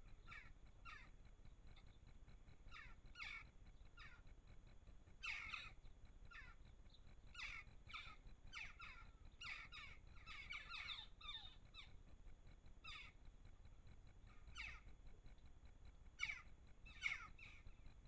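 A flock of crow-family birds giving short, harsh calls, singly and in quick pairs, scattered irregularly, busiest in the middle; the loudest pair of calls comes near the end.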